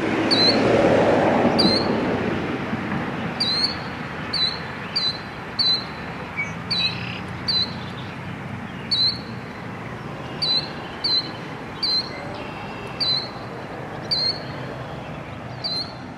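A songbird chirping again and again, short sharp notes that drop in pitch, about one every half second to second and a half, over a steady rushing background that is loudest in the first few seconds.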